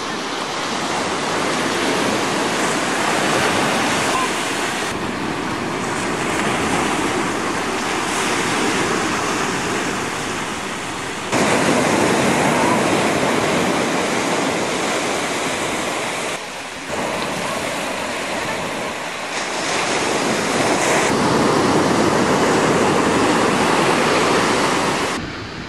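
Surf breaking and washing up a sandy beach: a steady rushing noise that jumps abruptly in level a few times.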